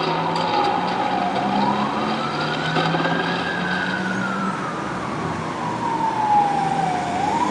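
A wailing siren, its pitch sliding slowly down and up again over a cycle of about six seconds, low about a second in and again near the end, over a low steady hum.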